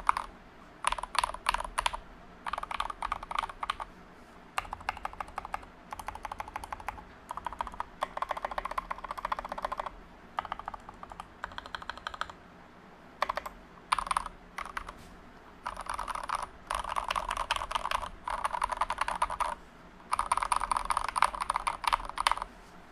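Typing on a GK61 mechanical keyboard with lubed Gateron Milky Yellow linear switches in an aluminium plate, SA-profile PBT keycaps and no case foam. Fast runs of keystrokes last a second or two each, broken by short pauses.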